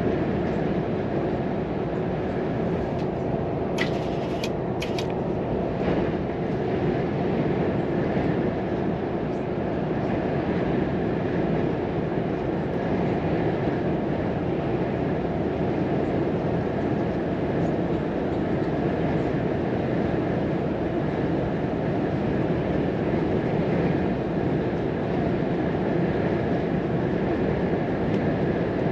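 Volvo FM 420 hp truck under way, heard from inside the cab: steady engine and road noise at cruising speed. A few short, sharp clicks or squeaks come about four to five seconds in.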